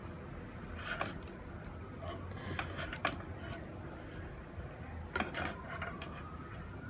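A few light clicks and knocks from a stiff copper cable being handled and bent, its old insulation hardened and cracked.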